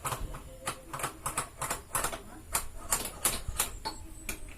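Quick, irregular metal clicks and taps from hand tools and engine parts being handled during a scooter engine teardown, about three or four a second.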